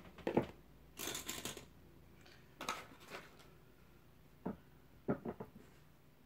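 Small craft pieces being handled on a wooden work table: a knock about half a second in, a brief rustle around a second in, then scattered light taps and clicks.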